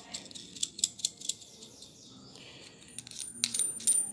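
Small metal clinks and ticks of a steel nut being handled and threaded onto a 3/8" threaded rod. There are several sharp taps in the first second, then a quieter stretch of rubbing, then a cluster of clinks with a brief high metallic ring near the end.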